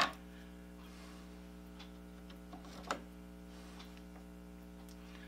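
Light metallic clicks from a South Bend 9C lathe's threading dial being moved by hand: a sharp click at the start and another about three seconds in, with a few fainter ticks between, over a steady electrical hum.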